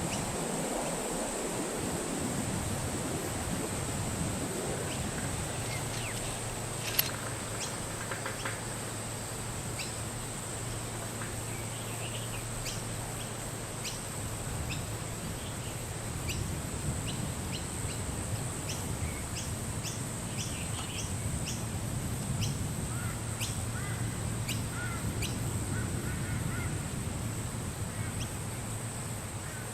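Scattered short bird calls and chirps, typical of ducks or poultry, over a steady high-pitched hiss and a low hum, with one sharp click about seven seconds in.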